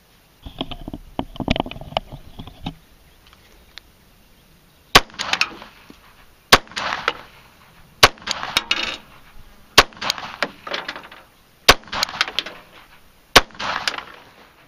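Sig Sauer P232 pistol firing six single shots, spaced about one and a half to two seconds apart, each followed by a short echo. A couple of seconds of rustling comes before the first shot.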